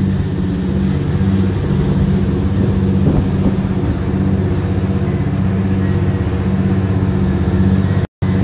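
An engine running steadily with an even, low drone, cutting out briefly near the end.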